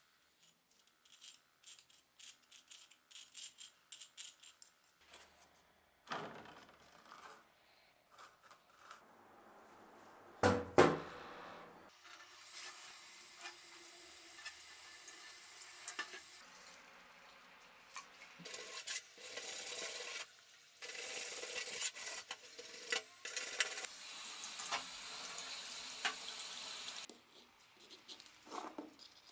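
Knife scraping electrolysis sludge off a rusty axe head in short, quick strokes, then a single loud knock about ten seconds in. After that, tap water runs steadily over the axe head in a stainless steel sink, louder in the second half.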